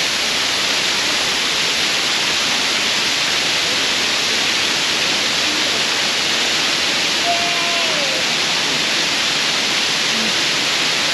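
Bridal Veil Falls, a tall waterfall pouring down a rock face, heard close to its base as a steady, loud rush of falling water.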